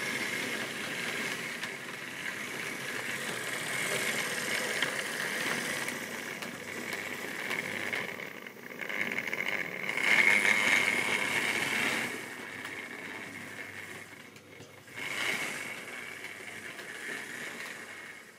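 Model railway train running past on the track: a continuous rattle of wagon wheels over the rails with a steady high whine. It is loudest about ten seconds in as the diesel shunter locomotive goes by, and drops away near the end as the train clears.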